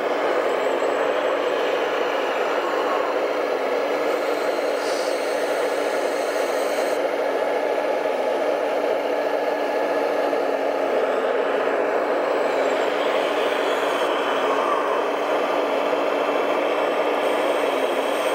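Radio-controlled Liebherr hydraulic excavator's pump and motors whirring steadily as it digs mud and loads a dump truck, with a low hum underneath.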